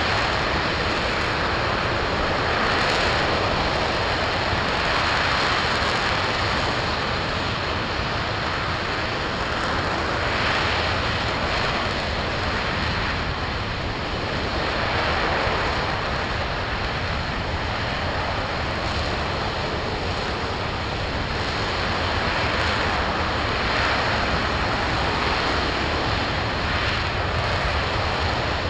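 RS-25 liquid-hydrogen/liquid-oxygen rocket engine firing steadily during a long-duration hot-fire test: a continuous dense roar-like noise that swells and eases slightly every few seconds.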